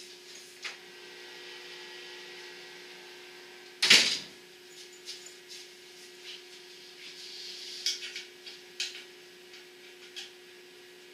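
Light rustling and small clicks of someone moving about and handling parts, with one sharp knock about four seconds in, over a steady low hum.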